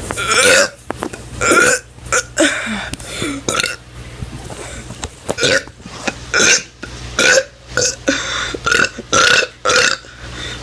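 A teenager burping on purpose: about a dozen short, loud burps, one after another, coming in quicker succession near the end.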